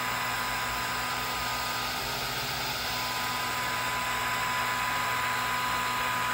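Swiitol 18-watt diode laser engraver running while it engraves a grid into an MDF waste board. It makes a steady rush of fan and air noise, with a couple of faint, steady high whine tones over it.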